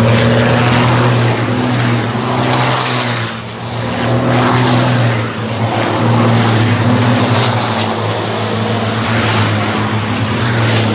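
Pack of racing trucks' diesel engines running hard as they pass through a corner, a steady low engine drone with a rush of noise swelling as each truck goes by.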